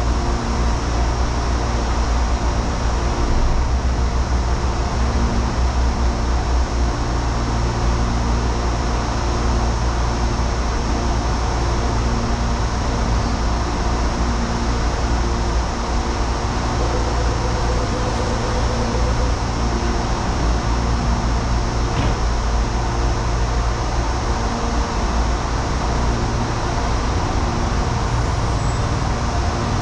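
Steady low rumble and hum of electric trains and traffic at a commuter rail station, with several held mechanical tones and a single click about 22 seconds in.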